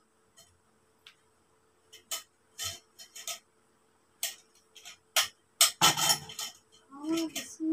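Scattered clicks and knocks of the metal tubes of a double-pole telescopic clothes rack being handled and fitted, with crinkling of plastic packaging; the knocking is densest a little past the middle. A woman's voice comes in near the end.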